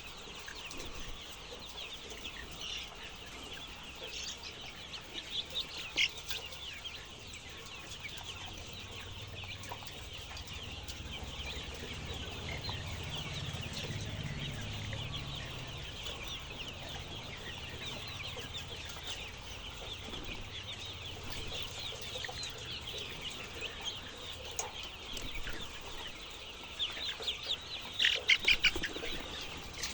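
A large flock of chickens calling all at once, a dense steady chorus of short overlapping clucks and cheeps, with a few louder calls near the end.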